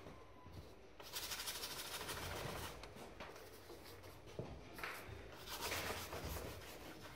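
Paintbrush scrubbing and mixing oil paint on a palette: a long stretch of rough scratching about a second in, then a few shorter strokes near the end.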